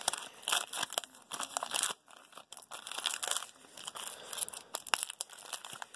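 Foil trading-card pack wrapper crinkling and being torn open, in irregular bursts with a short lull about two seconds in.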